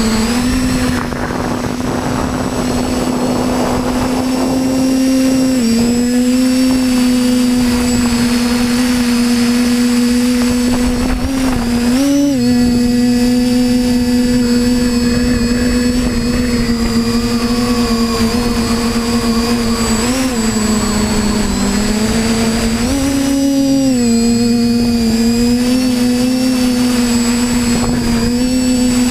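Small camera drone's electric motors and propellers humming steadily at one high pitch, the pitch rising or dipping briefly a few times as it changes speed in flight. A rushing, wind-like noise runs under it for the first few seconds.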